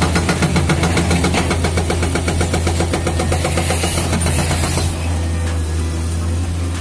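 Heavy construction machine's diesel engine running with a rapid, even hammering of about seven strokes a second, which stops about five seconds in and leaves the engine running steadily.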